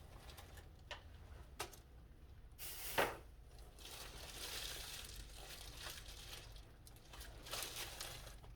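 Packaging of a new light fixture being opened and handled: rustling in several spells, with a few sharp clicks and one louder knock about three seconds in.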